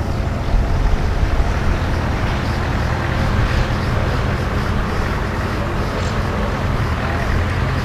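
Tractor engine running steadily: a low drone with a broad rush of noise over it.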